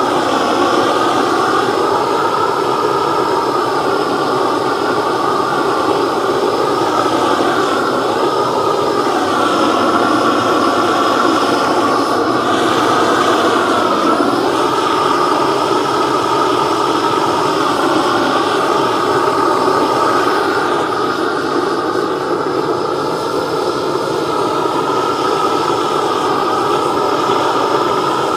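Hose-fed blowtorch flame running steadily as it chars a chainsaw-carved wooden pumpkin, burning off the fuzz left by the chainsaw and sealing the wood. The pitch wavers slightly as the torch is moved.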